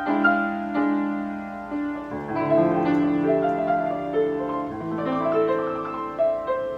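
A Steinway piano sound playing a slow melody over held lower notes. Each note is struck and then rings and fades.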